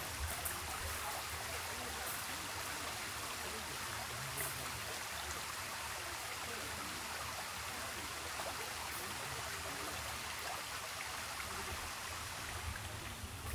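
Running water flowing steadily, a small stream or trickle.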